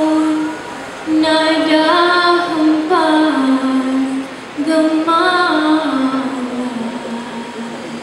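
A solo female voice singing a slow, ornamented dikir barat verse without accompaniment, in long phrases with short breaths between. The last phrase sinks to a low held note that fades out near the end.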